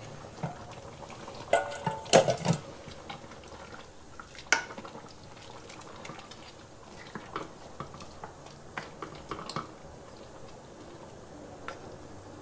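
A cooking spoon knocking and scraping against a pot while stirring beans into a stew, with a cluster of loud clinks about two seconds in, a single sharp clink a couple of seconds later and lighter taps after that. Beneath them the stew simmers faintly and steadily.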